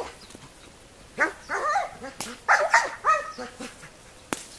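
Young German Shepherd, about six months old, barking in bursts of agitation at a decoy during protection training, starting about a second in. A single sharp crack near the end.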